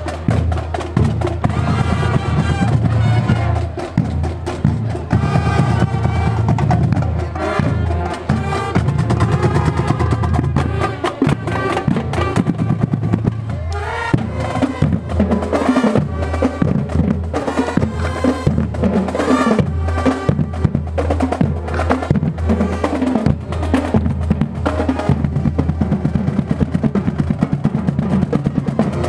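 A marching band is playing. Its drumline of snare drums and marching bass drums beats rolls and steady rhythms, with a melody carried over the drums.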